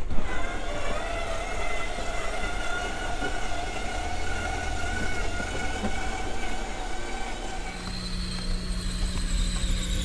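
Electric slide-out motor of an RV running, extending the bedroom slide: a steady mechanical whine with a hum beneath it. It starts with a sharp onset, and its tone changes about three-quarters of the way through.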